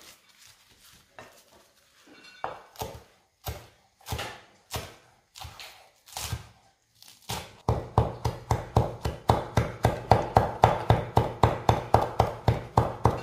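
Chef's knife chopping parsley on a wooden cutting board. It starts with a few separate cuts, then about halfway through settles into fast, steady chopping of about four strokes a second.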